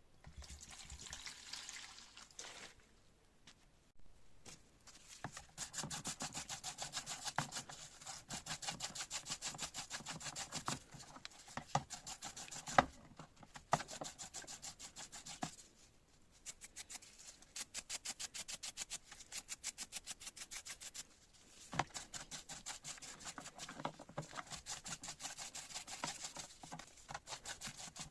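Rapid back-and-forth hand rubbing or scrubbing on a metal hydraulic-jack part, many strokes a second, in spells of several seconds with brief pauses and an occasional louder knock.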